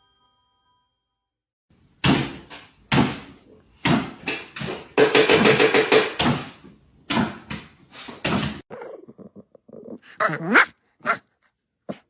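A dog barking repeatedly in loud, sharp bursts, starting about two seconds in and lasting several seconds, followed by fainter, shorter sounds and a brief whine that sweeps in pitch.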